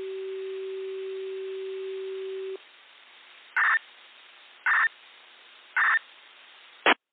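Electronic signal tones: one steady low tone held for about three seconds, then three short, higher beeps about a second apart. A loud click near the end, after which the sound cuts off.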